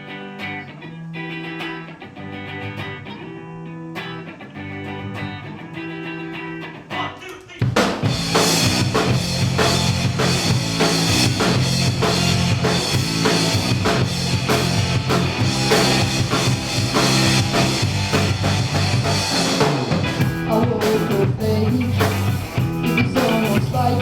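Instrumental intro of a live band: a guitar plays a repeating figure alone, then about seven and a half seconds in the full band comes in loud with drum kit and guitars.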